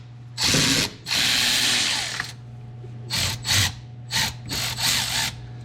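A ratchet wrench clicking as it backs out the 10 mm bolts holding an ignition coil. There are two longer runs of ratcheting in the first two seconds, then several short strokes, over a steady low hum.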